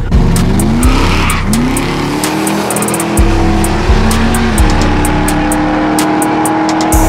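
Loud music with heavy, evenly spaced bass hits, mixed with a car engine revving up and holding high revs.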